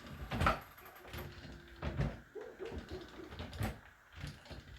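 Metal knocks and clinks of parts and tools being handled while a nut is worked back onto a hydraulic cylinder, with one sharp knock about half a second in and another after three and a half seconds.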